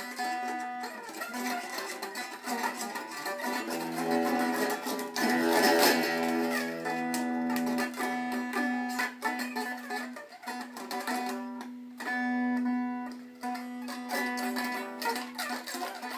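Electric guitar, Stratocaster style, played by a beginner: irregular strums and picked notes, with a low note ringing on under much of it.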